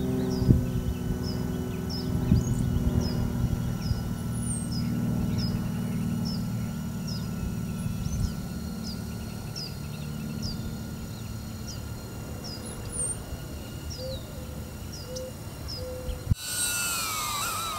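Steady low hum, with a bird repeating a short high chirp about twice a second. Near the end, after a sudden change, a louder whine of the DJI Avata drone's propellers falls in pitch as the drone comes down to land.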